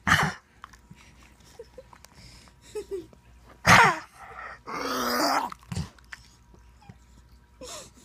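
A few short, harsh coughs, the loudest about four seconds in, followed by a longer rasping hack lasting about a second, from the family dog's cough and the toddler copying it.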